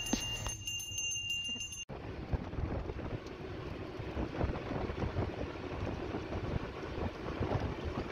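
Road rumble and wind noise from riding in an open-sided electric auto-rickshaw. A steady high whine sounds over the first two seconds, then breaks off suddenly into a denser, gusty rumble.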